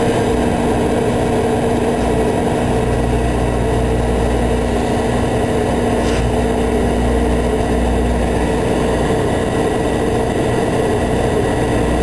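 Microwave oven running with a steady low hum, and a brief snap about six seconds in as the grapes spark.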